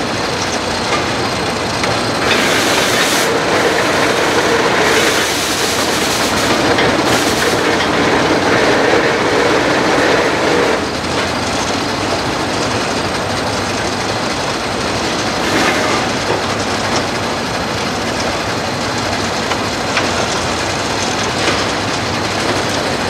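Erie steam shovel at work: its steam engine chuffing and hissing with mechanical clatter as the dipper digs, lifts and swings. Louder and hissier from about two seconds in until about eleven seconds, then steadier.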